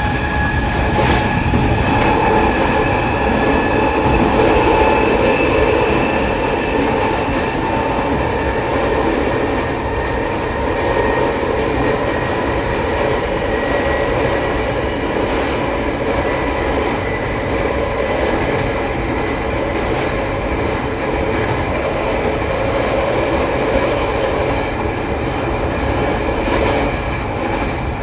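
E500 push-pull Tze-Chiang express running and accelerating from about 90 toward 120 km/h: a steady rumble of wheels on rail, with a slowly rising whine from the Toshiba IGBT traction drive. A repeated thumping from out-of-round, flatted wheels runs through it.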